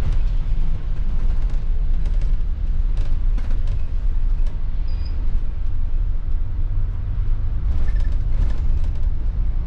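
Wrightbus StreetDeck double-deck bus on the move, its Daimler OM936 7.7-litre six-cylinder diesel and the road noise making a steady low rumble. A few short clicks or rattles come about three seconds in and again near the end.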